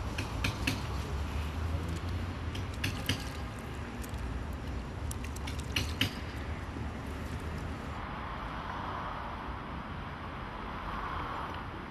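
Scattered clicks and knocks of household objects being handled, with some watery sounds of hands in an enamel washbasin. About eight seconds in this gives way to a steady background hiss.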